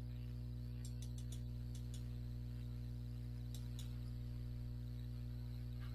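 Steady low electrical mains hum with a faint hiss, and a few faint clicks in small clusters about one second and three and a half seconds in.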